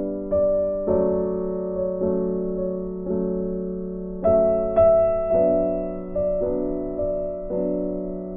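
Soft background piano music: chords struck about once a second, each fading away before the next, with a brighter, louder chord a little past the middle.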